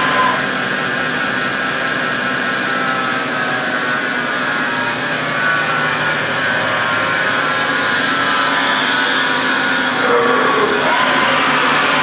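Doosan V550 CNC vertical turning lathe running: a steady machine hum and whine with several held tones, with a brief shift in pitch about ten seconds in.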